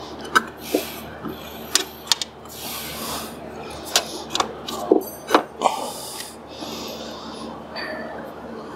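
Snowmobile drive belt being worked by hand onto the secondary clutch: irregular clicks and knocks of the cogged rubber belt and the metal clutch sheaves, with soft scuffing in between.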